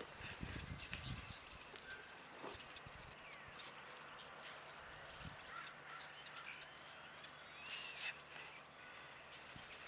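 Small birds chirping over and over in short, quick, high notes. Faint soft thuds of a horse's hooves on arena sand come mostly in the first second.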